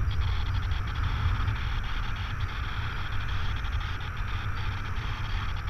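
Wind from the airspeed of a paraglider in flight rushing over the camera's microphone: a steady low rumble with a hiss above it.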